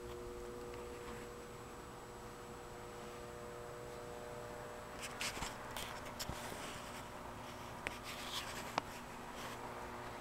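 Handling and movement noise: a steady electrical hum, then from about halfway a run of scratchy rustling and rubbing with a few sharp clicks as the camera is moved out of the car.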